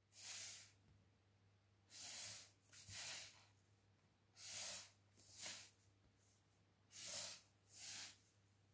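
A person breathing softly near the microphone: about seven faint breaths, mostly in in-and-out pairs.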